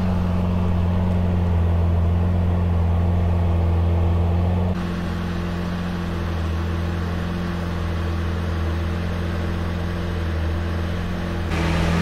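Lamborghini Aventador LP700-4's 6.5-litre V12 idling steadily with a low, even hum, a little quieter after about five seconds.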